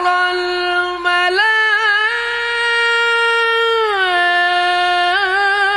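A young man's melodic Quran recitation (tilawah), sung into a microphone. He holds long notes, steps up to a higher note a little over a second in and holds it with a wavering turn, then falls back about four seconds in, with another ornamented turn near the end.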